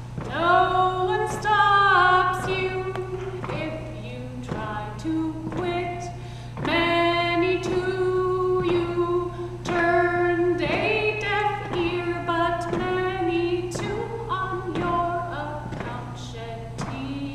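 A woman singing unaccompanied, a slow melody with long held notes.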